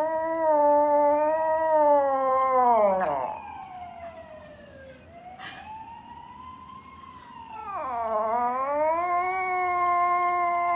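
Small poodle howling in long, drawn-out notes. A loud howl slides down in pitch about three seconds in, a quieter wavering howl follows, and a loud howl rises again near the end and is held.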